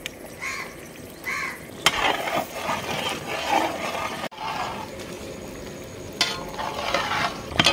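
Long wooden paddle stirring a large iron kadai of thick, simmering chicken gravy, with the gravy sizzling and sloshing against the pan.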